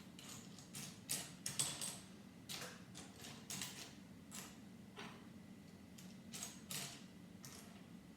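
Small plastic Lego pieces clicking faintly as they are picked through and handled, a string of light, irregular clicks.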